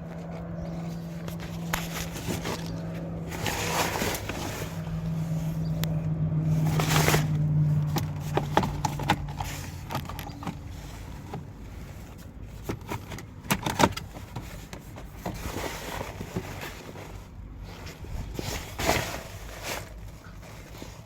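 An engine hum that swells and then fades out about ten seconds in, with scattered clicks, knocks and short scraping rustles throughout.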